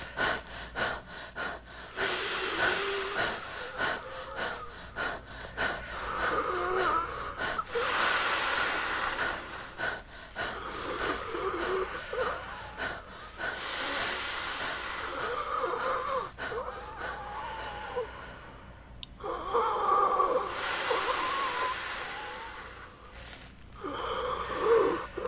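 A man breathing hard and laboriously, with long wheezing, gasping breaths about every four to five seconds, worn out from blowing up a large plastic bag by mouth for over eight minutes. Quick crackling clicks sound in the first two seconds.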